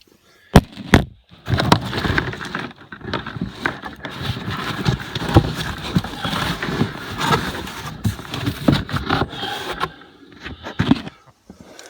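Two sharp knocks, then several seconds of scraping, rattling and rustling, as a 110-pound steel anvil is handled in its opened box and turned over.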